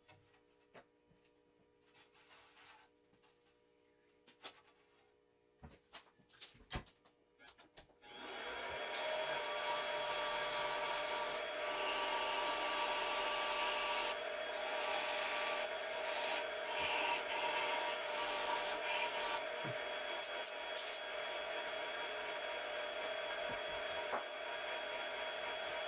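A few light clicks and taps. Then, about eight seconds in, a Grizzly mini lathe starts suddenly and runs steadily, a whining motor with a rushing noise, turning a brass tube.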